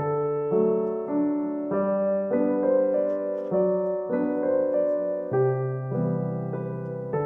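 Background piano music: a soft, slow tune of single notes over held chords, a new note about every half second.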